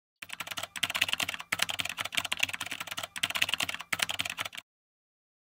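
Typing sound effect: a rapid, continuous run of key clicks with a few short breaks, stopping abruptly about four and a half seconds in.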